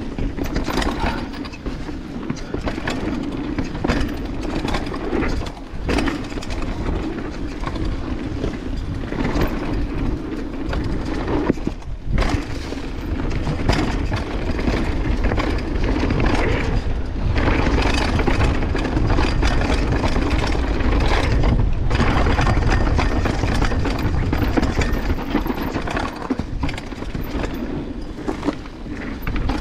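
Banshee Legend downhill mountain bike descending a dirt trail: tyres rumbling over the ground, wind buffeting the microphone, and the chain and frame clattering irregularly over the bumps. The chain is still slapping and rattling more than it should.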